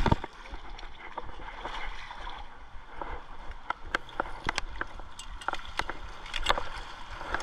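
River water rushing steadily, with a hooked sockeye salmon splashing at the surface right at the start. Irregular sharp clicks are scattered through the rest.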